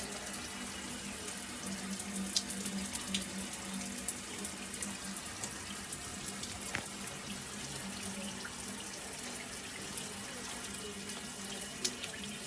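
Water spraying steadily from a Moen Ignite five-function shower head.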